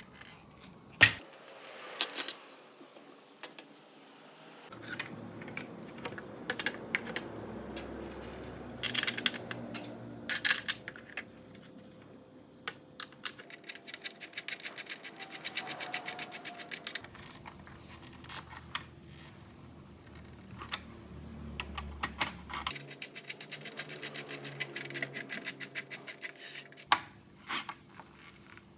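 Clicks, taps and light scraping of small hard objects being handled, with a sharp knock about a second in and several quick runs of rapid clicking.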